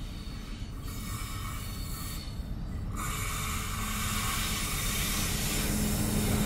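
Pacific National 92 class diesel-electric locomotive approaching at the head of a heavy freight train, its low engine rumble growing steadily louder as it nears. A hiss of running gear joins about three seconds in, followed by a steady low engine note.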